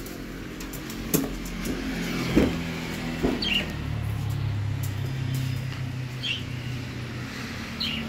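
A few sharp clicks of a wire bird cage being handled, then a low steady motor rumble, with a few short chirps from small cage birds.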